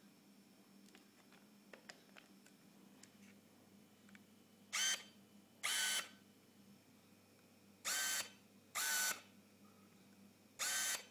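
Autofocus motor of a Tamron 17-50mm f/2.8 lens on a Canon DSLR whirring in short bursts as it drives focus, in three pairs with the two bursts of each pair about a second apart. A few faint handling ticks come before the first burst.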